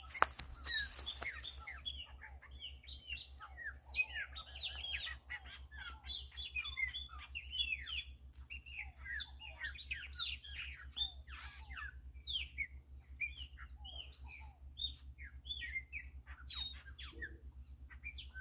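Many small birds chirping and calling together in a dense, continuous chorus of short, quick notes.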